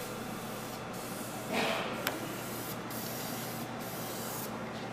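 Primer being sprayed onto a bare aluminium sheet: a steady spray hiss in several passes with brief breaks, stopping shortly before the end. A short louder noise comes about a second and a half in.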